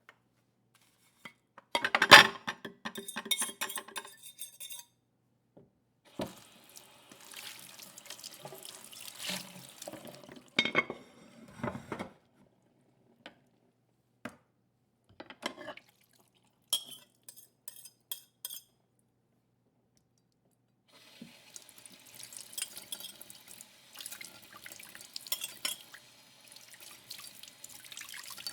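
Kitchen plates and dishes being scraped and knocked together, in separate runs with silent gaps between them. A loud clatter comes about two seconds in, and longer stretches of scraping and clinking follow.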